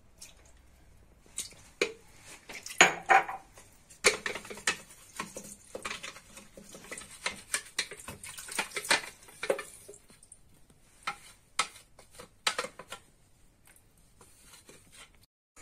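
A spoon scraping and knocking irregularly against a blender jar, getting out the last of the blended taro leaves; a few of the knocks ring briefly. It stops about two seconds before the end.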